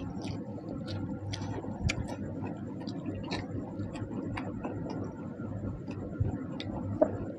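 Eating sounds: small irregular clicks and smacks of chewing and of fingers working soaked rice (panta bhat) on a plate, over a low steady background hum.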